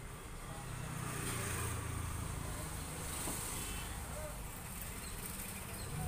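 Top-loading washing machine starting its spin cycle after draining: the ordinary belt-driven (non-inverter) motor runs with a quiet, steady hum that grows a little louder about a second in as the drum gets up to speed.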